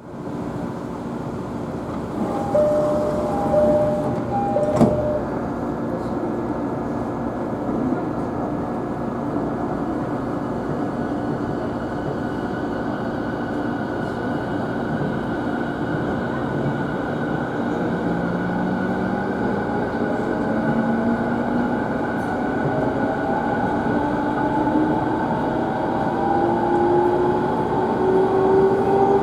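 Interior of a JR East E217 series motor car (MoHa E216) pulling away: a short two-tone chime, then a sharp thud about five seconds in, over the steady rumble of the car. From about a third of the way in, the traction motor whine rises steadily in pitch as the train accelerates.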